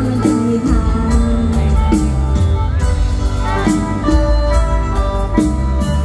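Live mor lam band music played loud through a PA system, with a heavy steady bass beat under a sustained, pitch-bending melody line.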